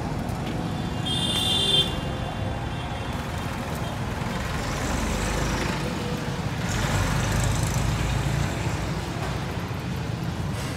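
Steady road-traffic rumble of passing vehicles, with a brief high-pitched horn-like tone about a second and a half in.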